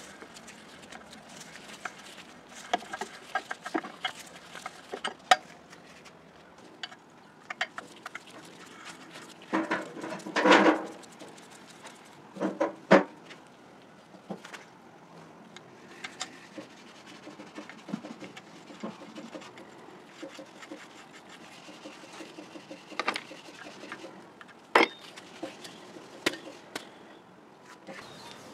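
Metal clinks, knocks and scraping as a wrench and a Model T cooling fan's hub and bracket are handled and unbolted on a workbench. A longer, louder clatter comes about ten seconds in, two sharp knocks follow around thirteen seconds, and scattered clicks come later.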